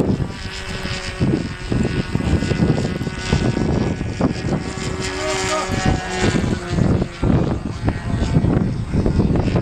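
Radio-controlled model airplane's motor and propeller running, a steady whining tone that shifts slightly in pitch as it flies, with wind rumbling on the microphone.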